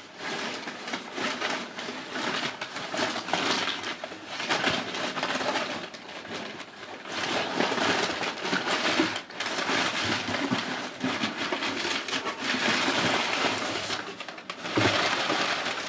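Packaging rustling and crinkling in continuous handling as a box of items is rummaged through, with a few short pauses.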